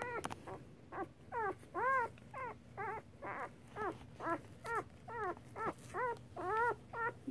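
Newborn standard poodle puppy crying in a rapid string of short squeals, about two or three a second, each rising then falling in pitch.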